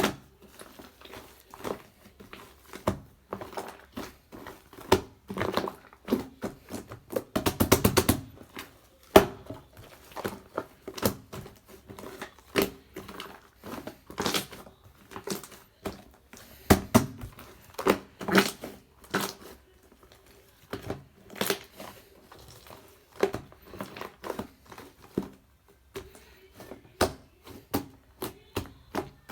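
Slime being squished and pressed by hand, making irregular sticky clicks and small air pops, with a quick run of pops about eight seconds in.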